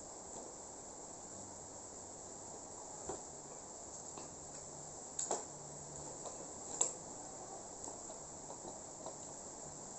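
Crickets chirring in a steady, continuous high trill, with a few scattered soft clicks and knocks, the loudest about seven seconds in.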